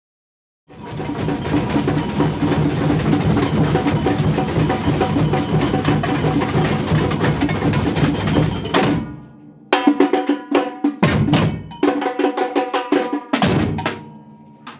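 Samba percussion ensemble with tamborims and drums playing a dense, steady groove. About nine seconds in it switches to a break of short, sharp ensemble hits separated by pauses, then dies away near the end.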